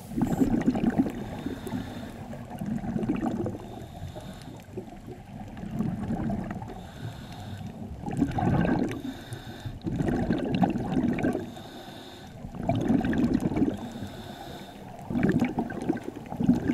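Scuba diver breathing underwater through a regulator, with exhaled bubbles gurgling in swells about every two to three seconds.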